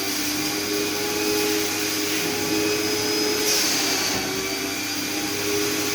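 Vacuum cleaner running steadily on a sofa, its motor tone wavering slightly. There is a brief rush of air a little past halfway.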